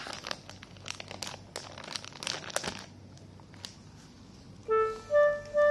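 A plastic snack bag crinkling and crackling for about three seconds, then a short pause. Near the end a louder tune of short, separate notes starts, played on a reedy wind instrument.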